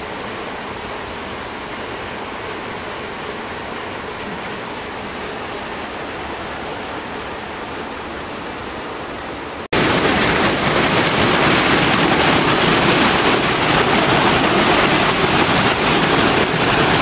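Steady rushing of a canyon stream. About ten seconds in, a cut brings a much louder, closer rush of water.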